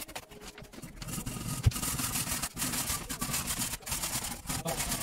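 Hand saw sawing with quick back-and-forth rasping strokes, starting about a second in, with one low thump early in the sawing.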